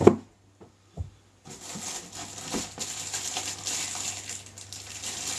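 A short knock, and a softer thump about a second later, then plastic packaging crinkling and rustling as a power cable in a plastic bag is handled and unwrapped.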